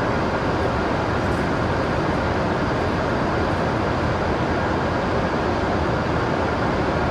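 Shinkansen train in motion, giving a steady, even rushing and rumbling noise that does not change.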